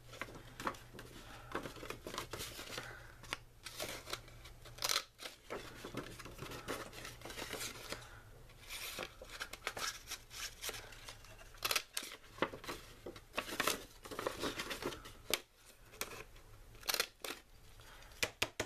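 A Martha Stewart handheld decorative corner punch snapping again and again as it cuts the corners of folded pattern paper, with the paper rustling as it is shifted between punches.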